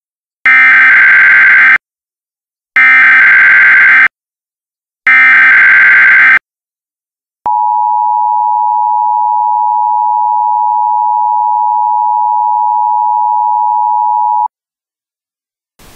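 Emergency Alert System signalling for a new alert: three short bursts of SAME digital header data, then the steady two-tone EAS attention signal held for about seven seconds before cutting off abruptly.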